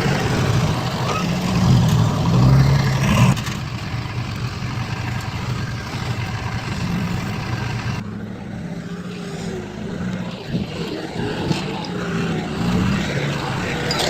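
Heavy construction machinery engines running, louder for the first three seconds. The sound changes abruptly twice, about three and eight seconds in.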